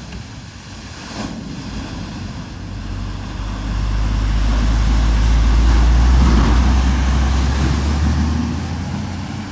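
A vehicle driving through a flooded ford: its engine hums under the splash and rush of water. It builds to loudest about six seconds in, then fades.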